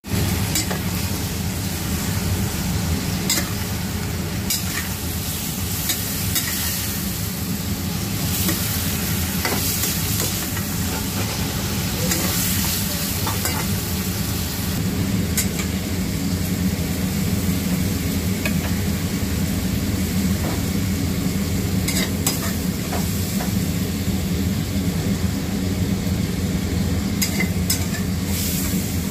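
Sliced cucumber and pork belly sizzling as they are stir-fried in a wok, with a metal spatula scraping and clinking against the pan now and then. A steady low hum runs underneath.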